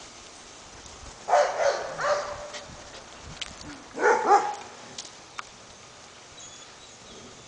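Puppies barking in play: two short bouts of high barks, the first about a second in and the second about four seconds in.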